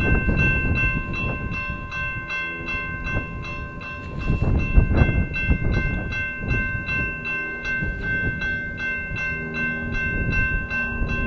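BNSF freight train passing with a steady rumble of locomotive and cars, under a grade-crossing bell ringing steadily at about three strikes a second.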